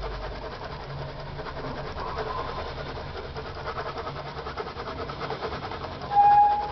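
Black Polychromos coloured pencil shading rapidly back and forth on card, a quick fill of a shadow area, giving a fast, even scratching. Near the end a short, loud steady tone sounds for about half a second.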